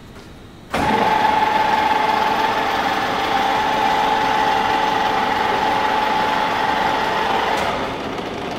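WMW FU 400x1600 milling machine starting abruptly from its control pendant and running with a steady whine from its drive, about a second in. It drops somewhat in level near the end.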